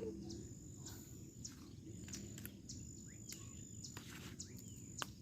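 Faint outdoor ambience: a steady high insect trill with a few short bird chirps and some faint clicks.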